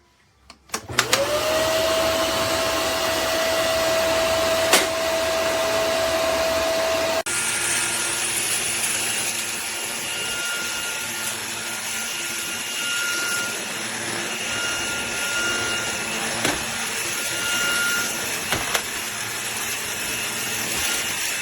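A Eureka RapidClean Pro NEC280TL cordless stick vacuum switches on about a second in, its motor spinning up with a rising whine that settles to a steady pitch under the suction noise. About seven seconds in the whine cuts out suddenly and the vacuum keeps running with a changed sound.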